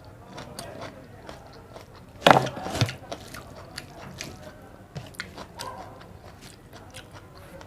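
Close-miked chewing and small wet mouth clicks of someone eating a meal of rice and egg curry, with one louder sudden sound a little over two seconds in.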